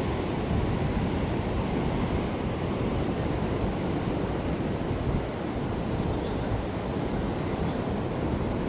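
Steady wind rumbling on the microphone over the wash of ocean surf on the beach.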